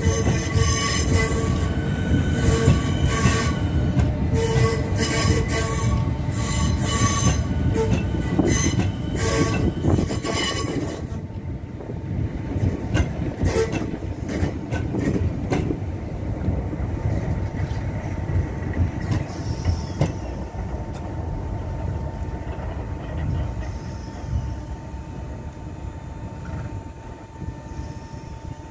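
Southeastern Electrostar electric multiple unit pulling out of the station, its wheels squealing on the curved track with quick clicks over the points. The squeal stops about eleven seconds in, and the train's running noise fades away under a steady hum.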